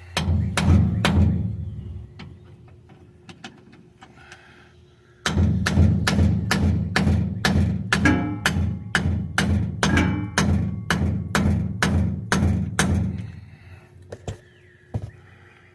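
Steel hammer blows on a bearing driver, seating a new pinion bearing race into the differential housing of a GMC Sierra rear axle. A few quick blows come first, then after a pause a steady run of about three blows a second, some of them ringing.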